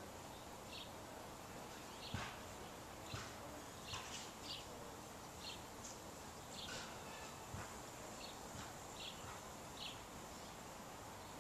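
Faint outdoor ambience with scattered short, high bird chirps, a dozen or so brief notes with irregular gaps, and a few soft knocks.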